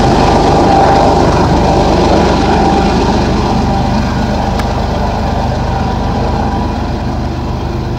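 Diesel freight locomotive on a coal train running with a steady low engine drone and the rumble of wheels on the rails, growing slightly quieter toward the end.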